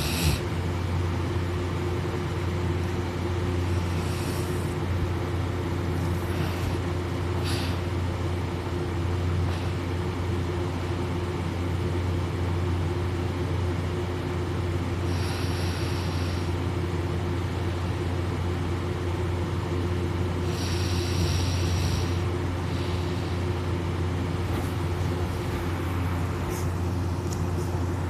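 A steady low mechanical drone, with a few short breathy hisses about four, fifteen and twenty-one seconds in.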